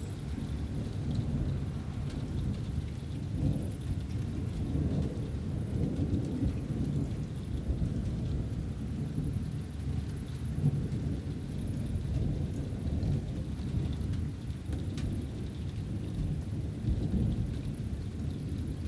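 Thunder from an approaching thunderstorm rumbling low and continuously, swelling and fading, with a few scattered raindrops ticking.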